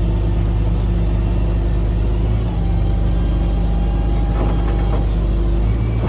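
Steady low rumble of a running motor vehicle, with a constant hum and a faint higher tone joining for a couple of seconds in the middle.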